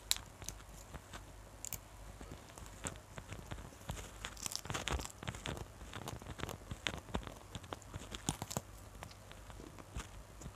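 Close-miked chewing of a mouthful of raw papaya leaf: wet crunching and crackling with mouth clicks, the loudest crunching about four to five seconds in and again just after eight seconds.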